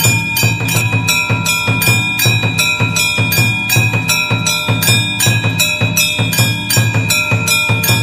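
Music with a steady quick beat and bell tones ringing on over it.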